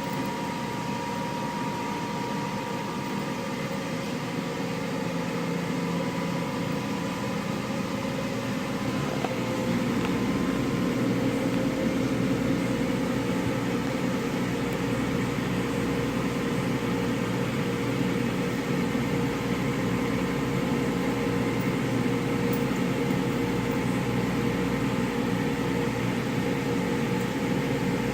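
Commercial washing machine running with a steady mechanical whir that grows louder about ten seconds in, then holds level.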